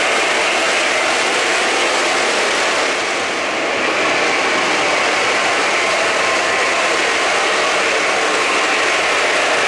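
O-gauge model trains running on three-rail track: a steady rolling rush of metal wheels on the rails with motor hum. The sound dips slightly for a moment about three seconds in.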